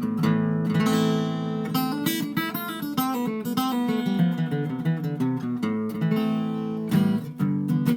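A 1950s all-mahogany Harmony H165 flat-top acoustic guitar, remanufactured as a Baxendale conversion, being played: strummed chords with single picked notes, left to ring between strokes.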